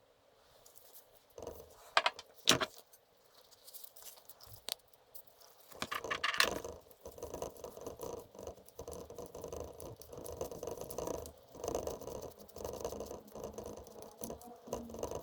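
Small hard parts being handled on a workbench: two sharp clinks early on, then irregular rattling and scraping of metal pieces.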